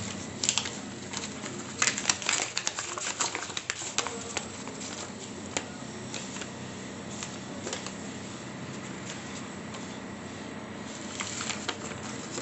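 Paper crinkling and rustling as a folded paper invoice is unfolded and handled, in quick bunches of crackles, busiest about two seconds in and again near the end. A steady low hum of background noise runs underneath.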